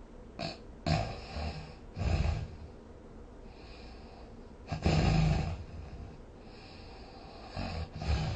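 A sleeping person snoring unevenly: four low, rough snores about 1, 2, 5 and 8 seconds in, the one near five seconds the loudest, with softer breathy inhales and exhales between them.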